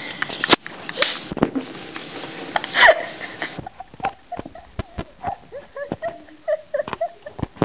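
Breathy, wheezing laughter from several people, with sharp knocks and clicks of a handheld camera being handled. After about three and a half seconds the laughter drops to quieter short bursts.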